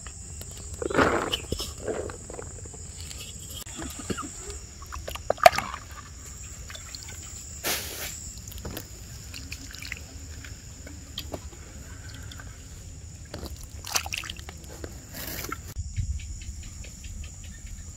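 Food being served and handled: a spoon scooping and sloshing fish curry in a clay pot, with scattered soft knocks and clinks of utensils and a sharp knock about five seconds in. A steady high-pitched whine runs underneath.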